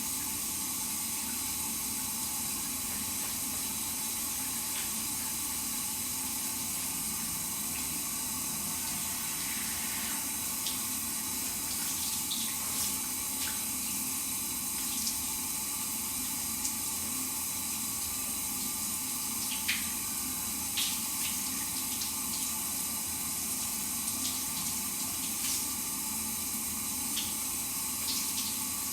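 Shower running: a steady spray of falling water, with scattered brief ticks and spatters from about ten seconds in.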